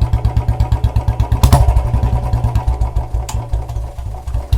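Royal Enfield Bullet's single-cylinder fuel-injected engine idling with its steady thumping exhaust beat, with a sharp crack about a second and a half in and a smaller one a little past three seconds. Near the end the beat slows and drops away as the kill switch cuts the engine, then picks up again when it is switched back on. This is an attempt to make the BS6 EFI engine backfire, which gives only a slight, brief heavier sound.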